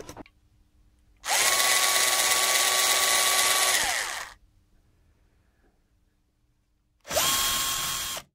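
Bosch cordless battery screwdriver motor whirring as it backs out the case screws: one run of about three seconds that winds down in pitch, then a shorter run of about a second that stops suddenly.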